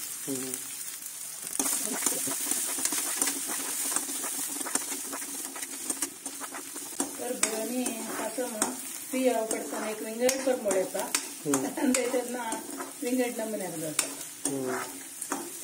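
Finely chopped onions sizzling in hot oil in a metal wok while a steel ladle stirs them, scraping and clicking against the pan.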